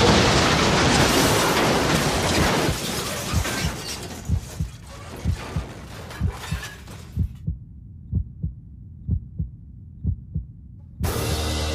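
Car spinning out and crashing: a loud scraping, rushing crash noise that fades over the first few seconds. Then low double thumps like a heartbeat, about one beat a second, with music starting near the end.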